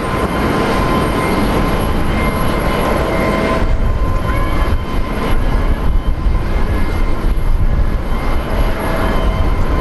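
Jet engines of a Japan Airlines Boeing 777-200 on the runway: a loud, steady rush of noise with faint whining tones through it.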